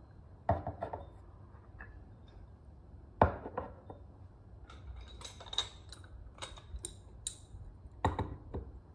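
Small porcelain cups and a lidded porcelain box being set down on a hard tabletop: several knocks, the loudest about three seconds in, with a run of light, ringing porcelain clinks in between.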